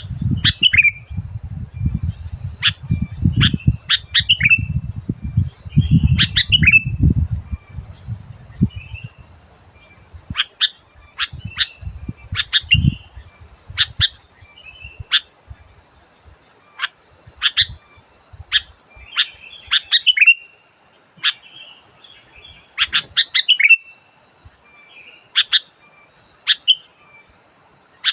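Sooty-headed bulbul calling: short, sharp chirps repeated in quick clusters, with a low rumble underneath for the first several seconds.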